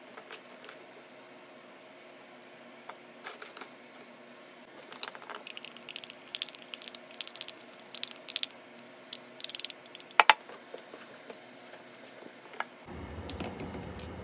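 Chopsticks clicking and tapping against a ceramic bowl while stirring a flour-and-water batter and coating tofu pieces, with one sharper ringing knock on the bowl about ten seconds in. Near the end the clicking gives way to a steady rushing noise.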